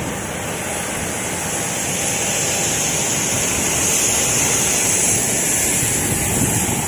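Steady, loud rushing aircraft noise with a high hiss, with wind buffeting the microphone.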